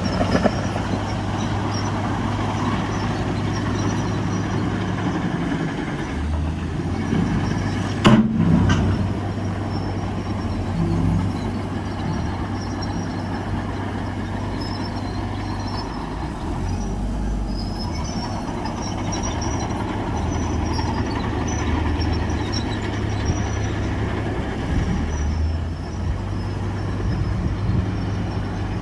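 Heavy diesel construction machinery running steadily, with a steady engine hum and metallic clatter and squeak. A single loud knock comes about eight seconds in.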